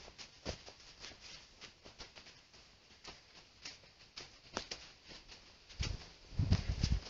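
Footsteps crunching irregularly on a sandy, gravelly dirt track, with a few louder low thumps near the end.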